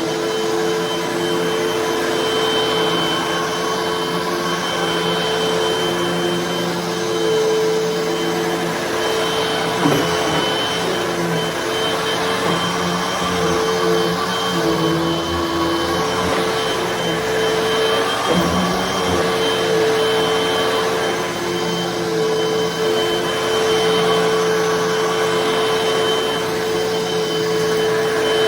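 Hoover vacuum cleaner running steadily over carpet: a continuous motor hum with a high whine, its pitch wavering a little. Two brief knocks, about ten and eighteen seconds in.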